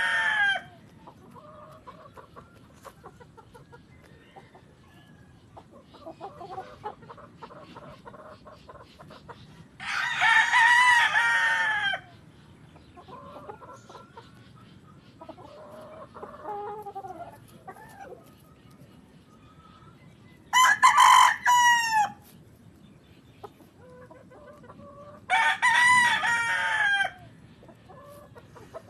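Gamefowl roosters crowing: three loud crows of about two seconds each, about ten, twenty-one and twenty-five seconds in, the middle one higher-pitched from a different bird. Fainter crows and calls from other roosters come in between.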